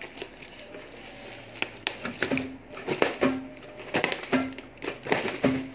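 Packing tape and cardboard crackling and tearing as a taped parcel is prised open with a small hand tool, with irregular sharp clicks and scrapes.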